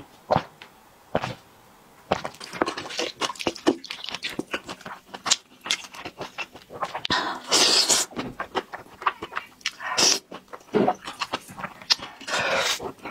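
Close-miked eating sounds: a couple of gulps at the start, then wet, clicky chewing of thick noodles in spicy sauce, with two longer, louder slurps of noodles, one about halfway through and one near the end.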